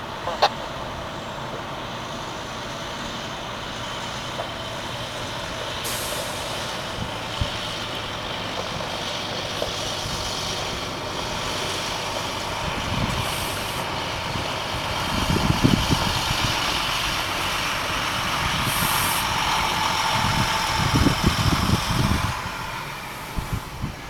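Engine of a railroad maintenance boom truck running steadily, with short high hisses about 6, 13 and 19 seconds in and irregular low bumps in the second half.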